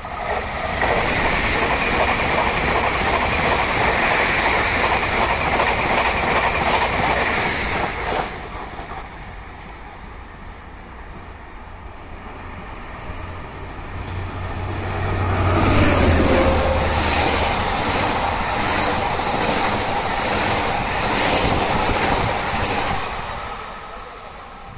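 A two-unit Z 50000 Francilien electric train passes at speed without stopping: a loud rush of wheels on rail with a high whine, dying away about eight seconds in. From about fourteen seconds a BB 67400 diesel locomotive hauling RIB coaches passes the other way. Its deep engine drone swells and drops in pitch as it goes by, then its wheels click over the rail joints, fading near the end.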